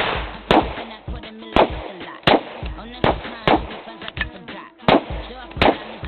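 Handgun shots fired one after another at uneven intervals, some in quick pairs, over music.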